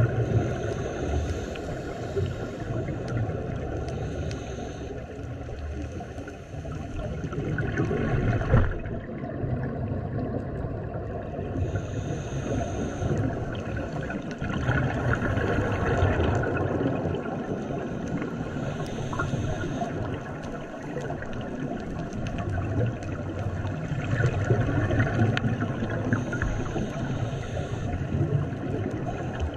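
Underwater sound of a scuba diver breathing through a regulator: a hissing inhale comes every several seconds, between swells of low, gurgling exhaust bubbles.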